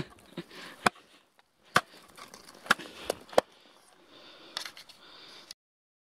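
Wooden pole jabbing and striking crusty old snow among rocks: a run of irregular sharp knocks with crunching between them, cutting off about five and a half seconds in.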